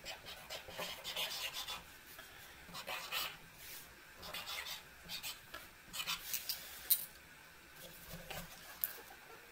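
Paint-marker nib scratching across a cardboard notebook cover in short strokes as a silver tag is written with a Uni-Paint PX-20 oil-based marker. A couple of sharp clicks near the end.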